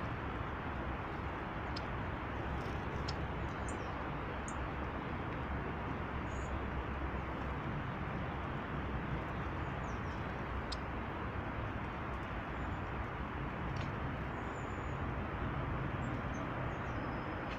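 Small birds giving short, faint high chirps now and then over a steady rushing background noise with a low rumble.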